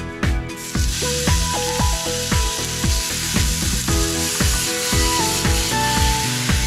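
Ground beef sizzling in a hot frying pan, starting under a second in and holding steady, over background music with a regular beat.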